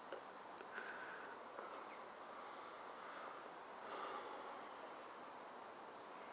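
Faint outdoor garden background: a steady low hiss, with two soft, brief hums rising out of it, about a second in and again about four seconds in.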